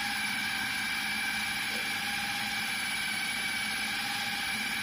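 Electric food processor running with a steady whine, its blade grinding raw chicken, onion and spices into fine kebab mince.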